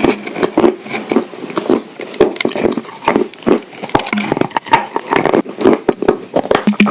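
Close-miked chewing of a baked clay cookie with clay paste: a rapid, irregular run of crunches, clicks and wet mouth sounds.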